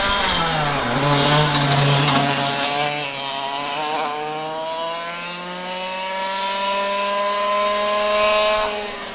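Racing kart engine dropping in pitch as it slows for a corner, then revving up steadily for about five seconds as it accelerates, backing off near the end.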